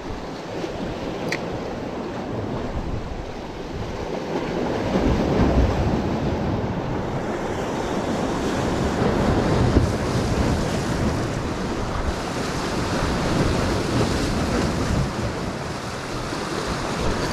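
Sea surf washing and breaking against shoreline rocks, swelling louder a few times, with wind buffeting the microphone.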